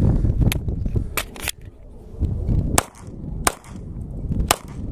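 Semi-automatic P80 Glock-pattern pistol firing about six shots at an uneven pace, roughly one every half second to a second.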